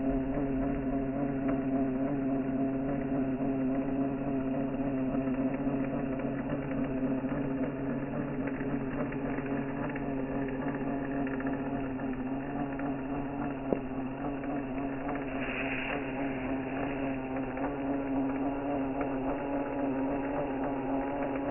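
An engine running steadily at an unchanging pitch, like an idle, with one sharp click about 14 seconds in; the sound cuts off abruptly at the end.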